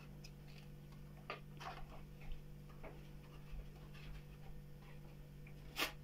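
Faint irregular clicks and rustling of plastic tubs and plastic sheeting being handled, over a steady low hum, with one sharper click near the end.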